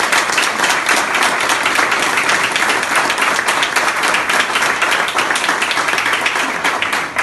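An audience applauding, many hands clapping together at a steady level, cutting off suddenly near the end.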